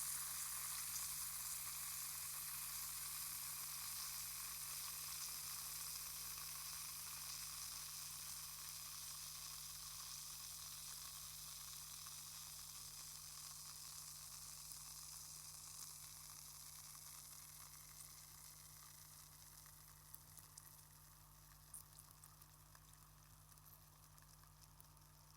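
Effervescent aspirin tablet fizzing in water, the fizz slowly dying away as the tablet dissolves, with a few small separate pops near the end.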